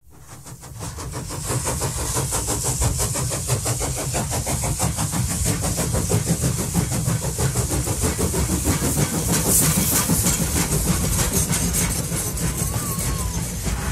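An engine running with a fast, even beat and a hiss over it, fading in over the first second or two.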